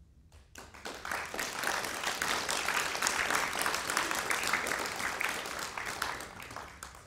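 Audience applauding: a dense patter of many hands clapping that starts about half a second in, holds, and dies away near the end.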